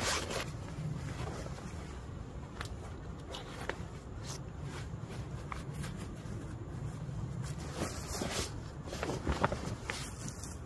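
Steady low wind rumble on the microphone, with scattered rustles of heavy wool fabric as a wool anorak is pulled on over the head and settled into place.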